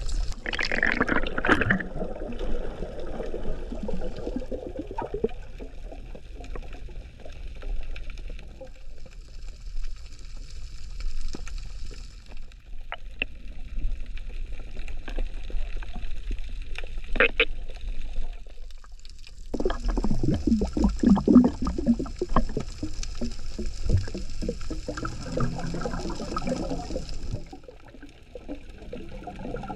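Underwater sound picked up by an action camera in a waterproof housing while freediving: muffled water movement and gurgling, with a few sharp clicks and a louder, busier stretch about two-thirds through.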